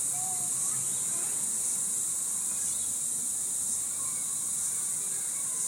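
Dense insect chorus, a steady high-pitched drone that carries on without a break.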